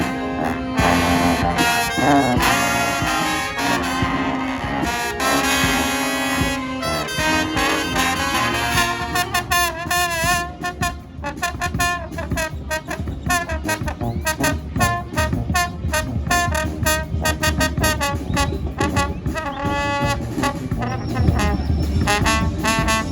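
A brass band playing: trombones, trumpets and saxophones over a steady beat. About eight seconds in, the full ensemble thins out and a lighter melodic line with wavering pitch carries on over the beat.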